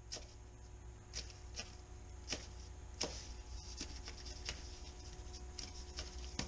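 Kitchen knife chopping fresh parsley on a paper plate: soft, irregular taps, roughly one or two a second, over a low steady hum.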